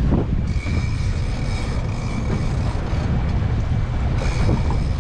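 Wind buffeting the microphone over the steady rumble of a boat with outboard motors at sea, with a faint steady high whine.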